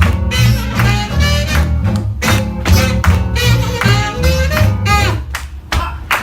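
Live swing band playing: strummed chords on every beat over a walking bass line, with a melody line on top. The music thins out just before the end.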